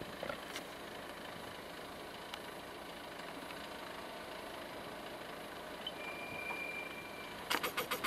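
JCB Fastrac 2155 tractor running along a lane as it approaches, growing slightly louder toward the middle. A thin steady whistle lasts about a second, and a quick run of rattling clicks comes near the end.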